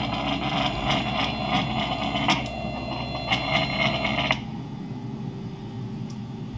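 Stepper motors of a homemade 3D printer driving the axes back to their home position: a steady whine with ticking, stopping abruptly about four seconds in.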